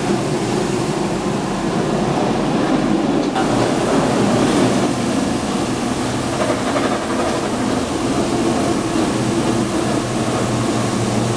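Hydro-Force RX-20 rotary jet extractor working across carpet, its vacuum suction making a steady, loud rushing noise over a low hum.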